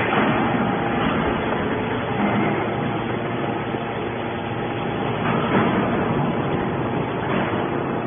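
Hydraulic scrap metal baler running steadily as its ram pushes a compressed bale of metal shavings out of the chamber.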